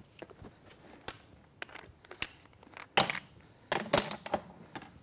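Metal shoulder rest posts clicking and knocking against the reformer carriage's brackets as they are handled and set in place, with a run of louder knocks from about three seconds in.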